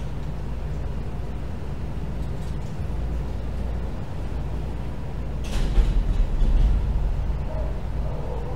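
Steady low hum, with a brief burst of rustling and bumping handling noise about five and a half seconds in.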